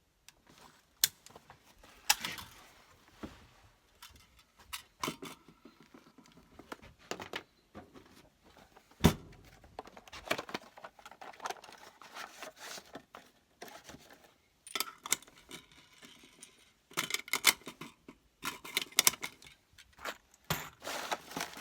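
Ammunition and gear being handled by hand: an irregular run of small clicks, clinks and rustles, with one sharper knock about nine seconds in.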